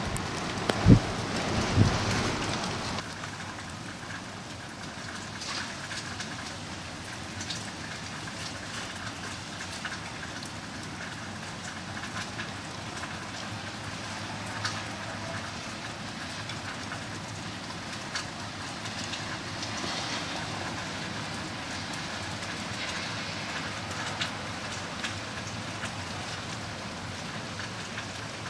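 Freezing rain falling steadily, an even hiss with scattered sharp ticks of drops striking hard surfaces. A few low thumps sound in the first two seconds.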